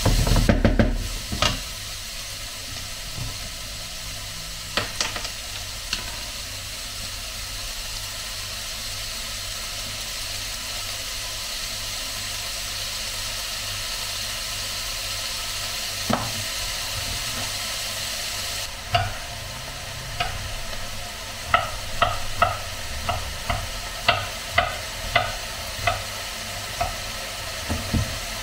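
Minced meat and onion sizzling in a frying pan, with a wooden spatula stirring and scraping against the pan in the first second or two. From about two-thirds of the way through, a knife chops steadily on a wooden cutting board, about two cuts a second.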